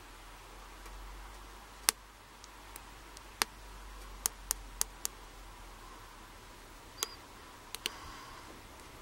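Lock pick and tension tool ticking against the pin stack of an Abus 34/55 padlock during single-pin picking: about nine sharp, irregular metallic clicks, several close together in the middle.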